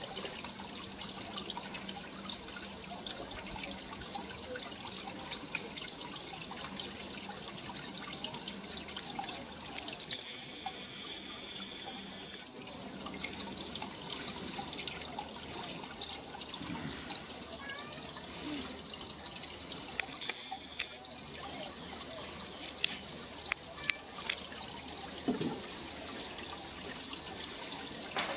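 Garden sphere fountain: water welling up from the top of a polished metal ball and trickling down over it onto river stones. It makes a steady trickle and gurgle with small drips, and no splashing.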